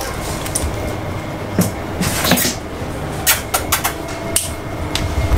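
A stiff sheet of cardboard being handled: several short scrapes and rustles, with a knock or two, over a steady low hum.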